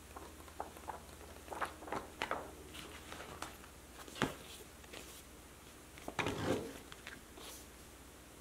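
Pages of a printed satin-paper zine being flipped and handled: soft paper rustles and page flicks, a sharp tap about four seconds in, and a louder rustle of the booklet being handled just after six seconds.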